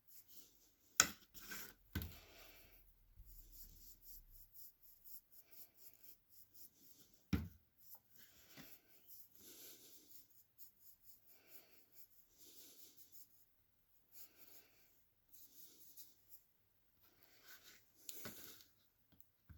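Faint, repeated rubbing strokes on the screwdriver's handle, about one a second, while a finish is worked in by hand. A few sharp knocks, about one, two, seven and eighteen seconds in.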